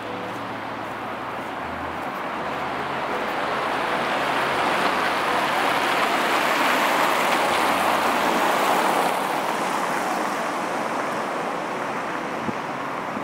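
A road vehicle driving past: engine and tyre noise swelling to a peak partway through, then fading away.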